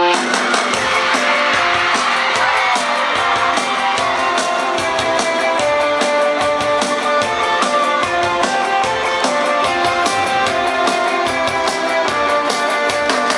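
Rock band playing live with no vocals: electric guitar and held melodic lines over a drum kit keeping a steady beat.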